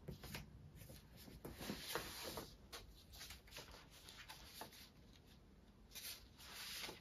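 Faint rustling and shuffling as things on a table are rummaged through and loose sheets of paper are leafed through, a little louder near the end.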